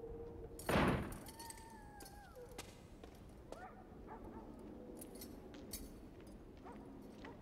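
A sudden loud burst of noise, then a cat's long wavering meow, followed by scattered faint clicks.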